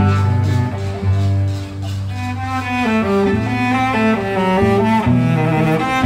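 Background instrumental music: a melody of changing notes over long held low notes.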